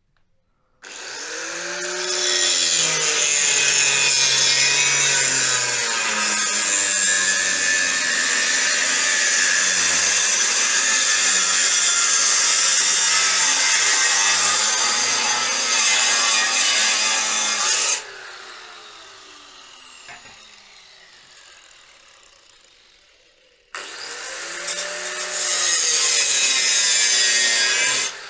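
Angle grinder with a cutting disc cutting steel profile. It starts about a second in and cuts steadily for about seventeen seconds, then is switched off and whines down. A second, shorter cut of about four seconds begins near the end and is switched off again just before the end.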